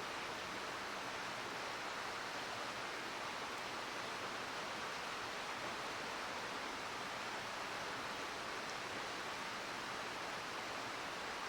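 Steady rushing murmur of a mountain stream flowing nearby, even and unbroken.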